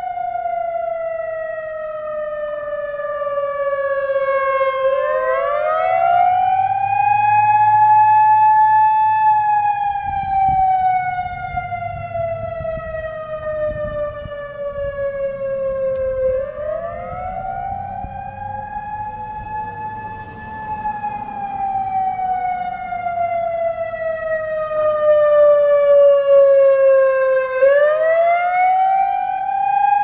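Whelen WPS 3016 electronic outdoor warning siren sounding a wail as its speaker array rotates. The pitch sweeps up quickly, holds briefly, then sinks slowly, about every 11 seconds, and the loudness swells and fades as the horns turn. The unit is dual-tone, but the second tone seems to have faded out over the years.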